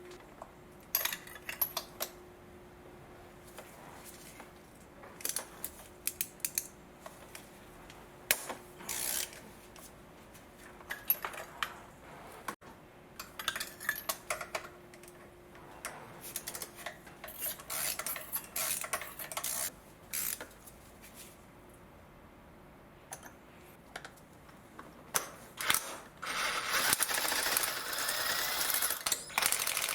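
Metal hand tools clinking as a socket extension and ratchet are handled, with scattered sharp clicks and knocks; from about 26 seconds in, a socket ratchet clicks rapidly and continuously as the spark plugs are worked loose.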